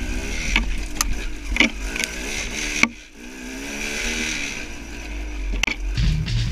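KTM dirt bike engine revving up and easing off repeatedly, with the throttle shut briefly about three seconds in, and several sharp knocks. Rock music comes back in near the end.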